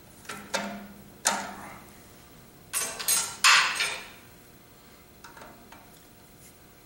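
Screwdriver working a terminal screw on a three-phase magnetic starter: a few light metallic clicks, then a louder cluster of three scraping clicks about three seconds in, and faint ticks later as the screw is snugged down on the wire.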